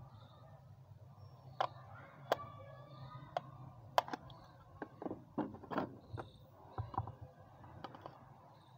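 Irregular sharp clicks and knocks of hard plastic as a Harpic bottle's nozzle is pressed and twisted against the side of another plastic bottle. Near the end, scissor points dig into the bottle wall. A low steady hum runs underneath.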